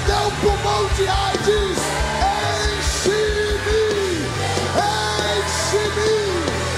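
Live worship music: a man's voice singing loud, sweeping, arching lines into a microphone over a band's steady bass notes and drum beat, with backing singers.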